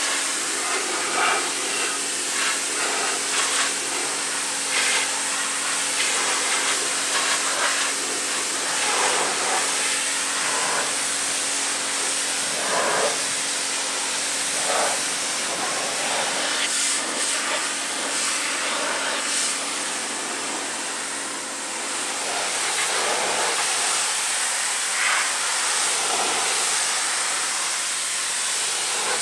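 Pressure washer jet spraying water onto a car's painted body panels: a steady hiss that flares and shifts as the nozzle moves over the bodywork. The washer's motor and pump give a steady hum underneath.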